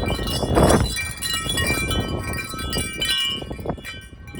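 Small metal wind chimes clanging rapidly in strong gusts, many overlapping ringing tones. Wind buffets the microphone with a heavy low rumble that swells and eases.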